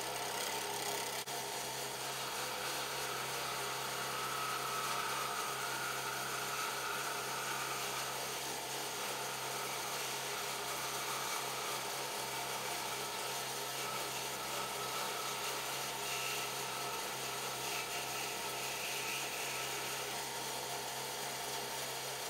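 Vintage Delta 18-inch scroll saw running steadily, its reciprocating blade cutting through half-inch oak with a constant hum and buzz.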